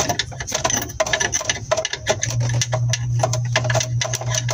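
Ratchet wrench clicking in quick, irregular strokes, metal on metal, as the brake master cylinder's nuts and fittings are loosened. A steady low hum comes in about two seconds in.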